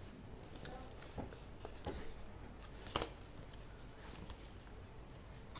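Faint scattered clicks and knocks of handling in a small room, the loudest about three seconds in.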